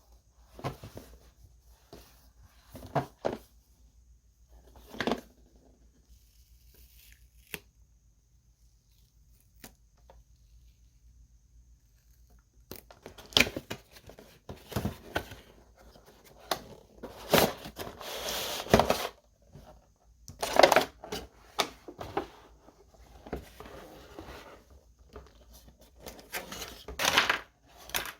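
Action figure's cardboard and plastic packaging being handled and opened by hand: scattered light knocks and rustles, a quiet spell of several seconds, then louder, denser rustling and crinkling of the packaging through the second half.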